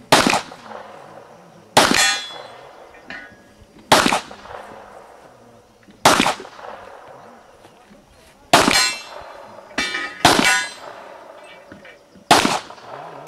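Handgun shots, eight sharp cracks at uneven intervals of about one to two seconds. Several are followed by a brief metallic ring.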